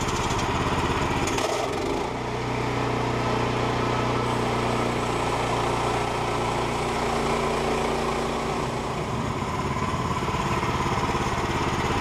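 Woodland Mills band sawmill's engine running steadily, its note shifting slightly about two seconds in.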